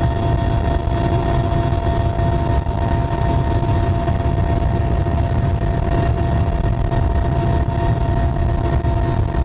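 Helicopter running steadily: a loud low rumble with a constant whine over it.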